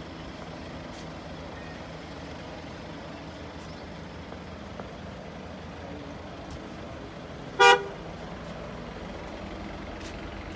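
A car horn gives one short toot about three-quarters of the way in, over the steady low running of a vehicle engine.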